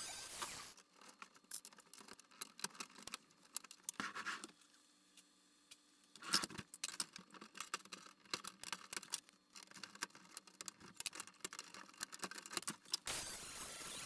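Irregular scratchy clicks and rustles, like a camera rubbing against clothing, fill most of the stretch, with a sharper click about six seconds in. An angle grinder grinding out a rivet is heard briefly at the start and comes back near the end.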